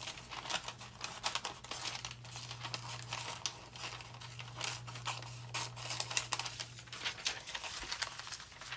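Small scissors snipping through a magazine page in short, irregular cuts, the paper rustling and crinkling in the hands between snips. A steady low hum runs underneath.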